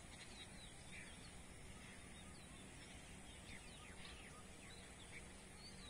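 Faint bird chirps, a scattering of short calls over a quiet, even background hiss.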